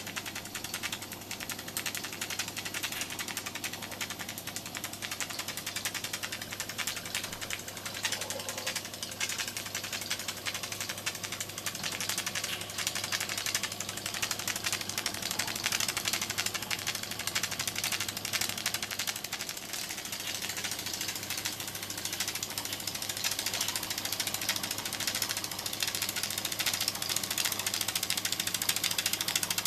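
Miniature oscillating-cylinder steam engine in an Era Collection walking stick running fast, a rapid run of exhaust chuffs and clicks, fed through a hose from a small boiler. It grows louder in the second half.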